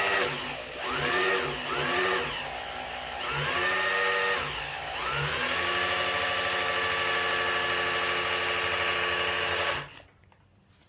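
Electric drill spinning an engine's oil pump through a priming tool, its motor whining under the load of pumping oil. The pitch sags and recovers a few times, then holds steady for several seconds before the drill stops suddenly near the end. The owner says the drill is nearly worn out.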